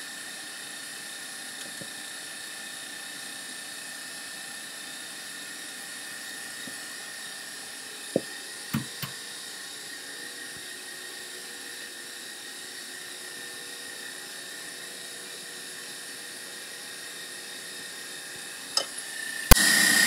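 Electric stand mixer running steadily with a high motor whine, its wire whisk whipping egg whites into meringue. A few light knocks come about eight to nine seconds in, and the whine grows louder near the end.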